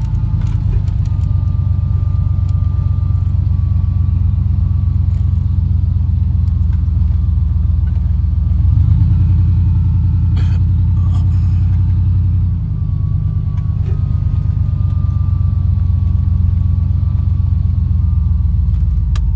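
Truck driving along, with a steady low engine and road rumble. The engine note rises about nine seconds in and falls back about four seconds later.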